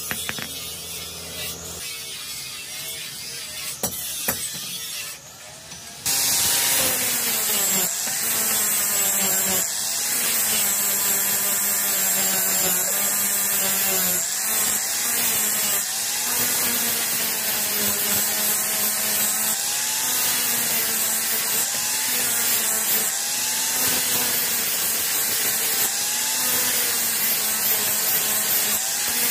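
A few hammer strikes on a steel bar over an anvil, then from about six seconds in an angle grinder grinding the steel blade of a nail-cutter knife. Its whine wavers in pitch as the disc is pressed into the metal.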